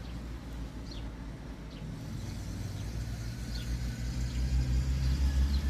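Ural fire truck's engine running with a low rumble that grows louder over the last couple of seconds. Faint short high chirps sound about once a second above it.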